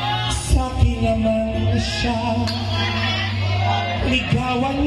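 Live band with a singer, amplified through PA speakers: a sung melody with vibrato over bass guitar and keyboard, with cymbal splashes now and then.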